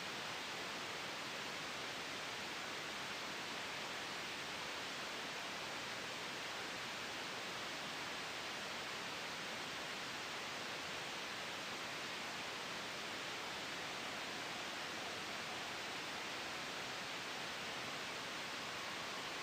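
Steady soft white noise for sleep: an even, unchanging hiss, brightest in the upper middle range, with no gusts or sudden changes.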